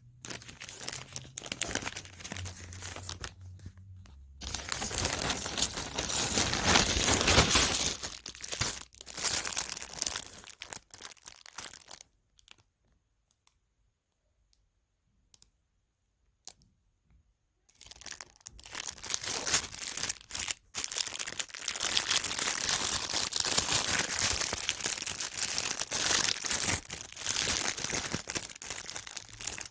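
Packaging being torn open and crinkled by hand, loud and close, a dense crackling run of rustles and rips. About twelve seconds in it stops for roughly six seconds, then the crinkling and tearing resume.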